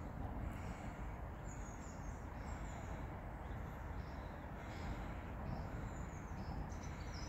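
Steady rushing of stream water, with birds chirping briefly now and then.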